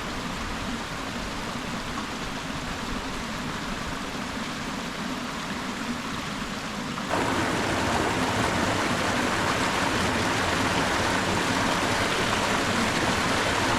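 Small woodland waterfall and rocky stream cascades, water rushing steadily over rocks; the rush grows suddenly louder about halfway through.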